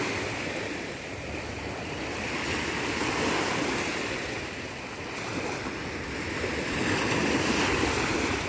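Small sea waves breaking and washing up a pebble beach, the surf swelling and fading in slow surges about every four seconds.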